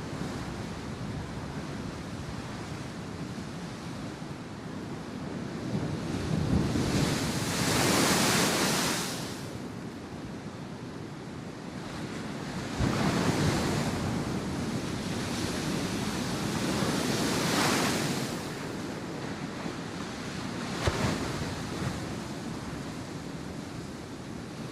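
Ocean waves breaking and washing in over a steady rush of surf. Two waves swell up loudly, one about a quarter of the way in and a longer one past the middle, and a smaller splash comes near the end.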